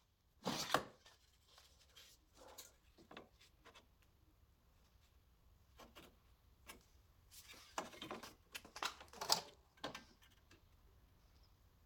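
Steel repair sections being handled and fitted against a Citroën 2CV body shell: scattered light metal knocks, clinks and scrapes, with the louder knocks about half a second in and again around eight to nine seconds in.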